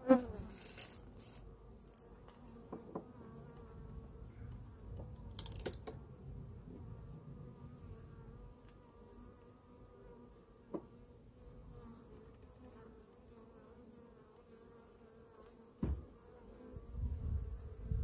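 Honey bees buzzing around an opened hive: a steady hum. A few sharp knocks and scrapes sound as the wooden frames are handled, about 5 s, 11 s and 16 s in, and more handling noise comes near the end.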